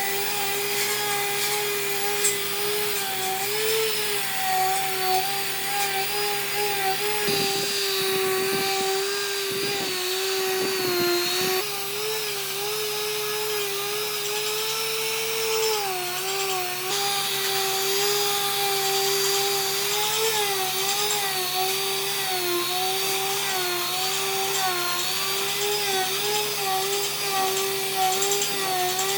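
Handheld electric power tool working wood: a steady motor whine whose pitch wavers up and down as the load on it changes.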